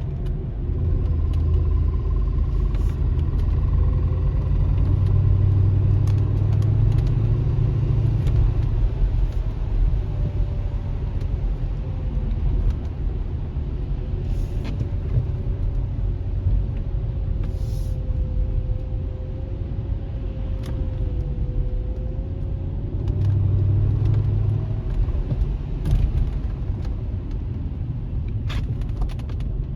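Mercedes CLK55 AMG's 5.4-litre V8 driving under load, a steady low rumble that swells twice as the throttle is opened, with a slowly wandering engine tone. The car has a ticking that speeds up with acceleration and goes away when coasting, a fault the owner is trying to trace.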